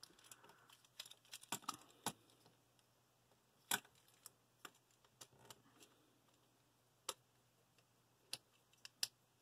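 Faint, scattered clicks and snaps of hard plastic from the joints and parts of a Transformers War for Cybertron Springer action figure being turned and pegged together by hand while it is transformed. A sharper click comes near the middle and several more come near the end.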